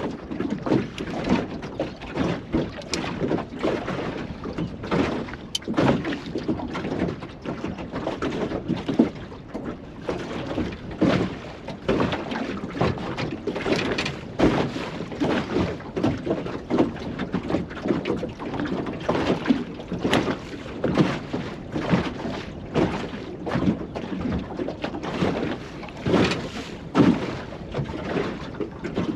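Choppy water slapping irregularly against the hull of a small drifting fishing boat, several splashes a second, in strong wind that also buffets the microphone.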